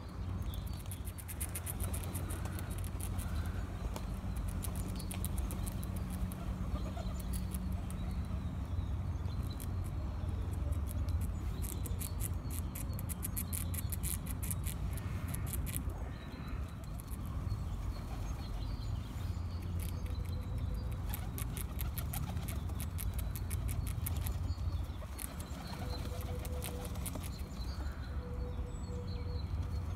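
Red squirrel gnawing the shell of a nut: runs of rapid, dry, high-pitched clicks, with a pause in the middle, over a steady low hum.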